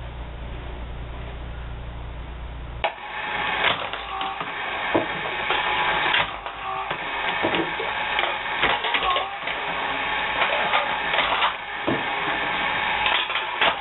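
Motorized aluminum can crusher running: a chain drive and push rods cycle a steel hammer against an anvil. A steady low hum for the first few seconds, then louder clattering with repeated sharp metal clanks and crunches as cans are crushed.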